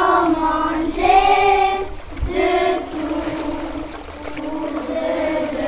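Children's voices singing a song, in long held notes of about a second each with short breaks between phrases.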